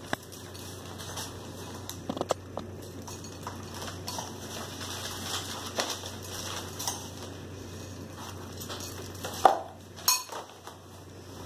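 A spoon clinking and scraping in a bowl as someone eats, with scattered light clicks throughout. A newspaper rustles and flaps, loudest near the end.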